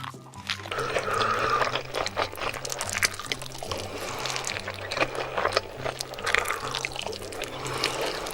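Close-miked wet chewing and slurping of a big mouthful of saucy food, full of small smacking clicks. It starts about half a second in, with a steady bass line of background music underneath.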